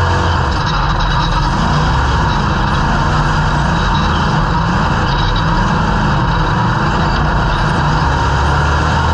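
Dirt-track stock car's engine running hard under racing throttle, heard from inside the stripped cockpit, its pitch rising and falling repeatedly as the driver works the throttle through the turns.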